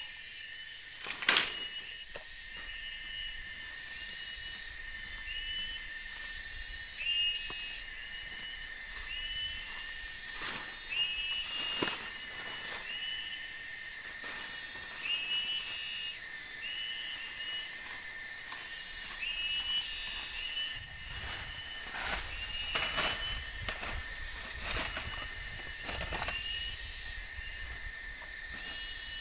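Forest ambience: a steady high insect drone, with short chirping calls repeating every second or two. Bursts of higher rasping calls come every few seconds, and there is a sharp knock about a second in.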